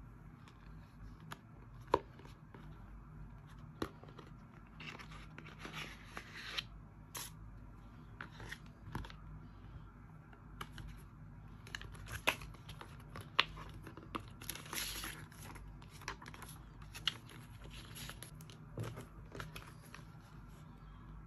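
Packaging being opened and handled: rustling of wrapping, in two stretches of a second or two, among scattered sharp clicks and taps.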